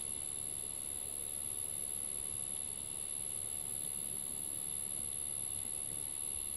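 Outdoor ambience: a steady high-pitched insect drone over a low wind rumble on the microphone, with no distinct hoofbeats.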